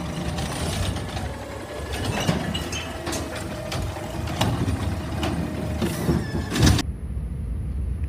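Automated side-loader garbage truck running while its hydraulic arm lifts and tips a wheelie bin into the hopper, with several sharp clanks and knocks. The sound cuts off suddenly near the end, leaving only a low hum.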